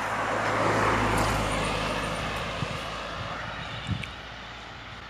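A car passing by on the road, its noise swelling to a peak about a second in and then fading away over the next few seconds. As it fades, a lower steady rush of the nearby waterfall is left.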